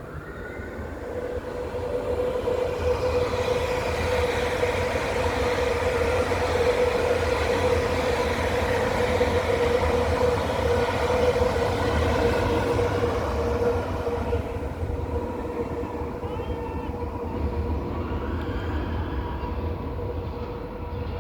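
Electric passenger train running along the track, with a steady, even-pitched whine over a rumble of wheels on rail. It grows louder over the first couple of seconds, holds, then eases off slightly in the later part.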